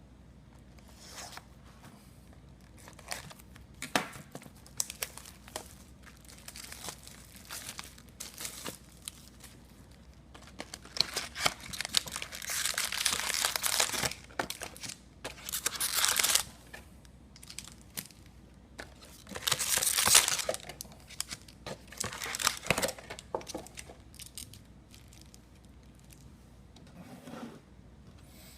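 Wrapping on a sealed box of hockey trading cards and its packs crinkling and tearing as they are opened. The sound comes in several bursts, the longest a bit under halfway through, with clicks and taps of card and cardboard between them.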